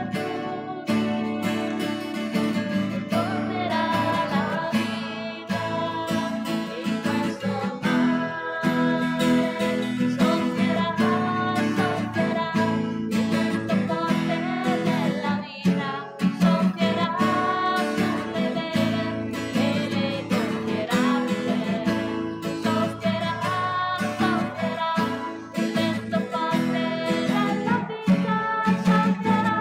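Acoustic guitar strummed, accompanying a voice singing a hymn.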